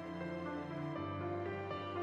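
Soft, slow background music with sustained instrumental notes that change about halfway through.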